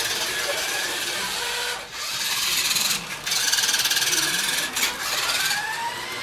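Small electric motors and gearboxes of toy radio-controlled trucks whirring as they drive, cutting out and starting again three times with the throttle. Near the end the pitch rises as one truck speeds up.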